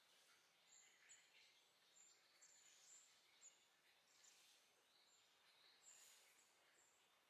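Very faint, high, short bird chirps repeating irregularly, a dozen or so notes, over a near-silent hiss.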